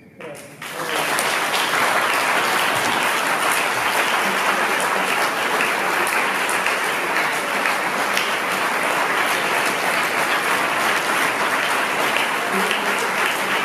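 Audience applause breaking out just under a second in and holding steady and loud.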